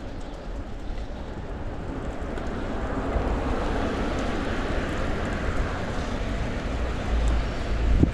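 A car passing on the road. Its tyre and engine noise swells to a peak about four seconds in and then fades, over a low wind rumble on the microphone that grows near the end.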